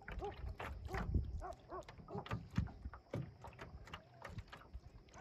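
Small waves slapping and lapping against a canoe's hull, a quick run of irregular knocks and plops, with low wind rumble on the microphone.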